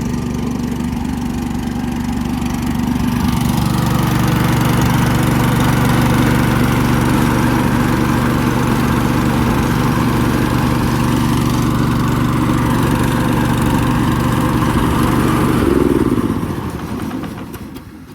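An engine running steadily that grows louder about three seconds in. Near the end it is shut off and winds down, its pitch falling until it stops.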